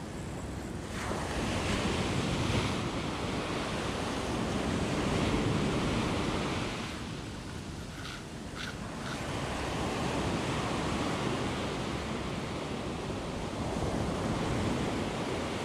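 Ocean surf breaking and washing up a sandy beach, the rush swelling and easing as each wave comes in, a few seconds apart.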